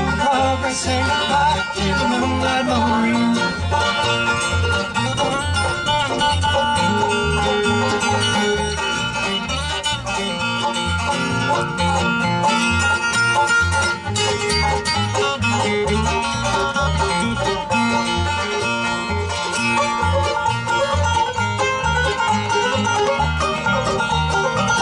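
Live bluegrass band playing an instrumental break between sung verses: acoustic guitar, mandolin and banjo picking over a steady bass beat.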